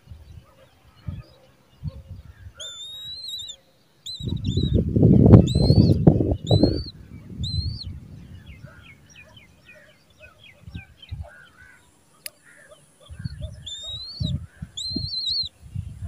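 Downy eagle chicks calling: a run of thin, high-pitched, arched calls about two to seven seconds in, and a couple more near the end. Bouts of loud low rumbling noise run under them, the loudest about four to seven seconds in.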